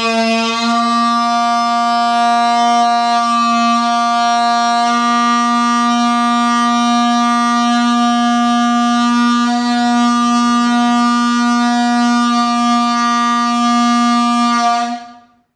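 Homemade balloon-membrane horn, a stretched balloon over a tube fitted to a PVC pipe, blown by mouth and sounding one long steady note that stops shortly before the end.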